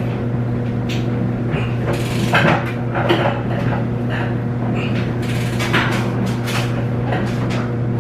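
Clothes dryer running with a steady hum, under irregular metallic clicks and clanks from a breaker bar and socket working on the stuck, gunked-up bolt that holds a washer's agitator.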